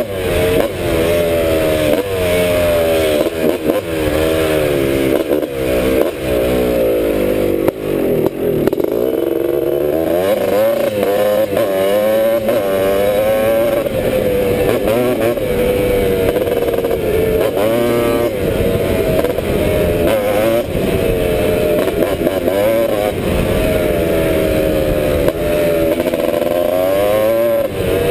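1986 Honda ATC250R three-wheeler's two-stroke single-cylinder engine under way. It revs up and drops back again and again through the first half, holds a steadier pitch through the middle, and revs up once more near the end. It is running well.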